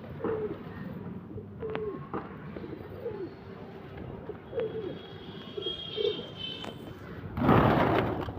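Pigeons cooing: a string of short coos, each falling in pitch, with faint high chirps among them. Near the end comes a loud burst of noise lasting about a second.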